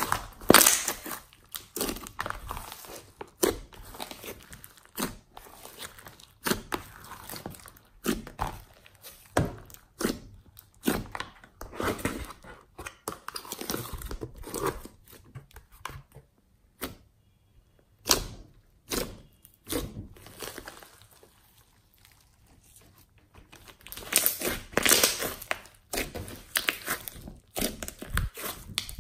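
Hands squeezing, stretching and poking slime: irregular sticky clicks, pops and crackles of trapped air, with a couple of quieter pauses in the middle.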